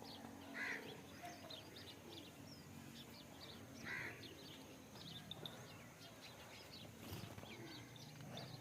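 Faint rural background with many small birds chirping throughout, and two slightly louder brief sounds, about a second in and around four seconds in.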